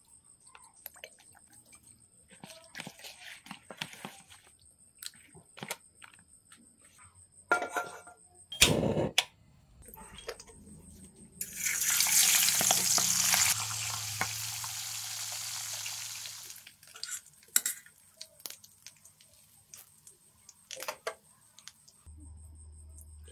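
Scattered taps and knocks of kitchen handling, with one sharp knock a little before the middle; then a burst of sizzling as a turmeric-dusted silver pomfret is lowered into hot oil in a stainless steel wok. The sizzle is loud for a couple of seconds, then settles to a steadier fry that dies away.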